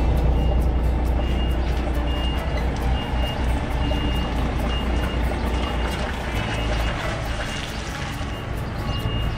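DAF XF truck manoeuvring in reverse: the diesel engine runs steadily at low revs while the reverse alarm sounds short, evenly spaced high beeps.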